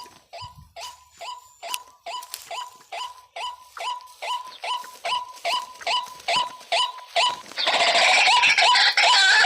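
Waterhen (jal murgi) calling over and over, short harsh notes that drop in pitch, about three a second at an even rhythm. From about three-quarters of the way in, a loud rushing noise covers the calls while they carry on.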